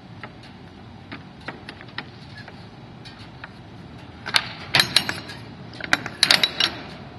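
Metal latch hardware on the rear door of a U-Haul box truck being worked by hand: scattered clicks, then two bursts of sharp metallic clatter, the first about four seconds in and the second about six seconds in.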